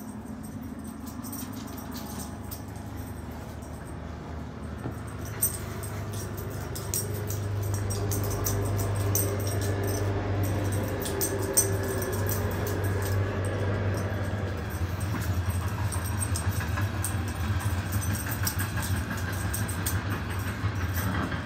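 Puppy growling in play while tugging a rope toy: a low, rough rumble that grows louder about six seconds in and keeps going, with scattered clicks and rustles from the toy and the dog bed.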